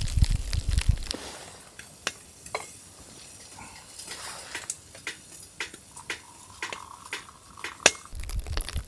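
Scattered light clinks and taps of metal cookware and utensils, with one sharper click near the end. A crunching rustle at the start stops after about a second and starts again just before the end.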